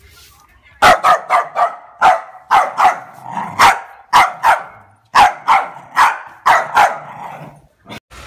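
Dog barking loudly: a quick run of about fifteen sharp barks, about three a second, starting about a second in and stopping near the end.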